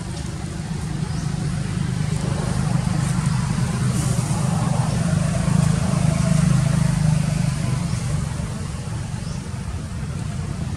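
Low motor-vehicle engine rumble that swells to its loudest about two-thirds of the way in and then eases off, as of a vehicle passing nearby.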